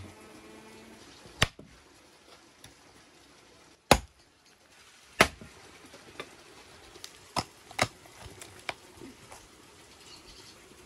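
Cleaver and hatchet chopping through the bone of a raw buffalo head onto a wooden chopping stump: about six sharp chops at uneven intervals, with lighter knocks in between.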